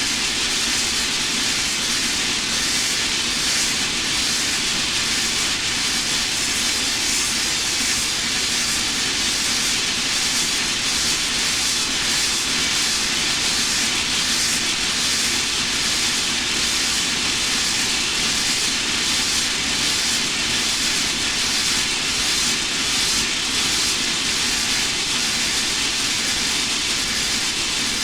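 A synthesized sci-fi sound effect: a steady, even hissing drone with a low hum underneath and a slight flutter in the high end, like a spacecraft engine ambience.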